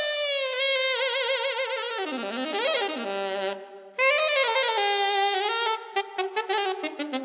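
Saxophone-led band music: the sax holds a long wavering note, slides up and down in pitch, breaks off briefly about halfway, then returns as a drum beat comes in near the end.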